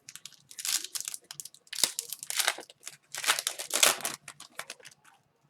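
Crinkling and rustling of hockey card pack packaging being handled, in three main bursts, with a few small clicks near the end.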